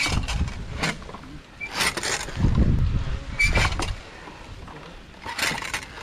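Irregular scraping and knocking from climbing gear shifting against a coconut palm trunk, with wind buffeting the microphone and a few short squeaks.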